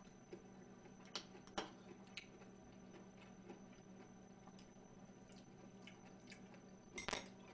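Faint eating sounds: quiet chewing of a mouthful of oyster rice and a few light clicks of a metal spoon against a white bowl, a slightly louder one near the end, over a low steady hum.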